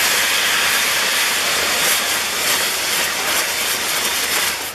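Ground fireworks: the gerbs of a Maltese firework wheel hiss steadily as they burn, then cut off suddenly near the end.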